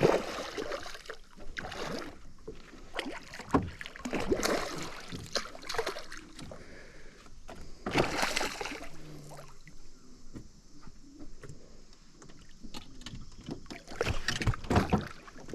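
Irregular splashing and knocks as a small barramundi is fought to the side of the boat and landed.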